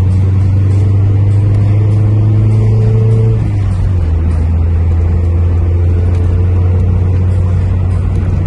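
Toyota Carina engine running under light throttle, its revs held up and then dropping to a steadier, lower speed about three and a half seconds in, with a faint repeated ticking. The engine has a new knock after its overhaul, which the owner likens to a Subaru's.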